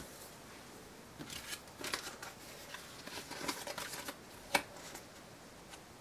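Hands moving yarn skeins and paper cards on a tabletop: faint, scattered rustling and small clicks, with one sharp click about four and a half seconds in as the loudest sound.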